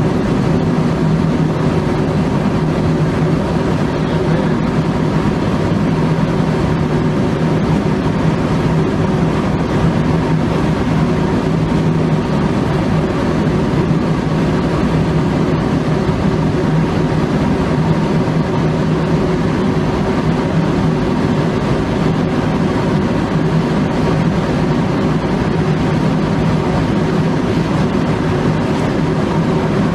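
Steady, unbroken drone of aircraft engines heard from inside the plane, with constant low hum tones and no change in pitch or level.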